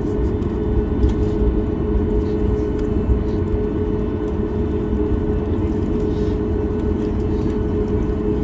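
Cabin noise of a Boeing 737 MAX 8 taxiing, heard from inside: the CFM LEAP-1B engines at low taxi thrust give a steady drone with a constant mid-pitched hum over a low rumble.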